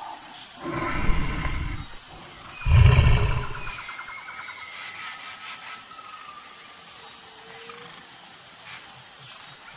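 Brown bear roaring: two deep roars, about a second in and about three seconds in, the second louder, then a quieter stretch.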